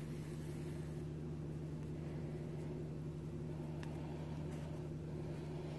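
Steady low hum from a running appliance or fan, with a few faint ticks over it.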